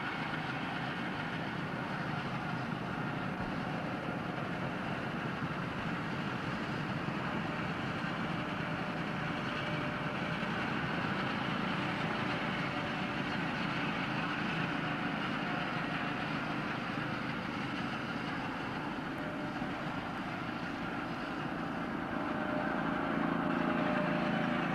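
Go-kart engines running steadily as the karts drive around a track, the engine note shifting up and down with speed and growing a little louder near the end.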